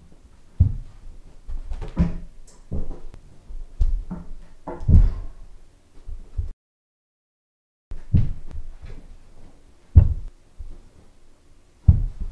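Thuds of feet landing on a carpeted floor and hands slapping a wooden coffee table during vaults and spins, a dozen or so irregular impacts. They break off for about a second and a half of dead silence a little past the middle.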